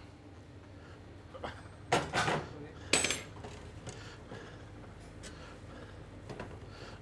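Copper pot and pans clanking on a gas range: a few sharp metal knocks, the loudest about two seconds in and again about three seconds in.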